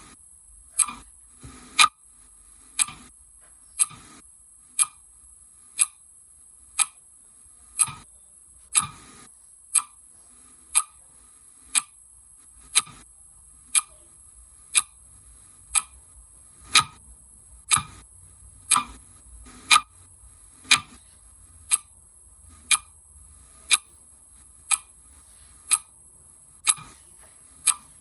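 Clock ticking steadily, about one tick a second, with a few extra softer clicks in between near the start.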